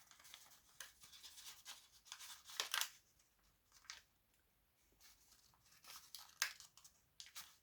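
A sheet of colored origami paper rustling and crinkling as it is folded and creased by hand, faint, with a few sharper crackles about a third and near the middle and later in the stretch.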